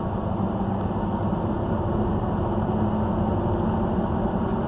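Steady engine and road noise heard from inside a moving vehicle, a low even rumble with a faint constant hum.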